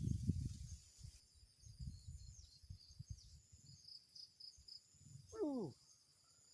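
Faint high chirping of insects and birds, with low rumbling noise in the first second. About five seconds in comes one short, louder call that glides downward.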